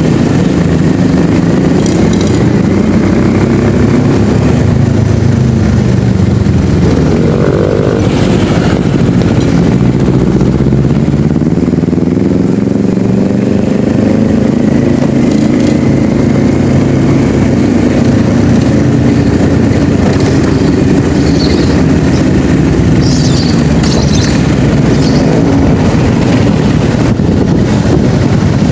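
A vehicle's engine running while on the move, its pitch rising and falling as it speeds up and slows down.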